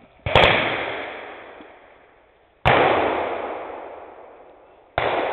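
Three loud blank gunshots, about two and a half seconds apart, each ringing out and dying away over a couple of seconds, the last one near the end.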